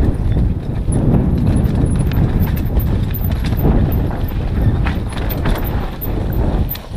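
Mountain bike riding fast down a rough dirt singletrack: steady rumble of the tyres on dirt, with irregular knocks and rattles from the bike over the bumps.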